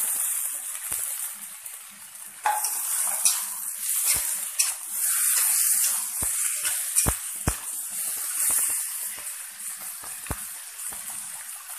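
Raw chicken pieces sizzling in hot oil in a wok, with a steady hiss. A metal spatula knocks and scrapes against the pan at irregular moments as the meat is stirred.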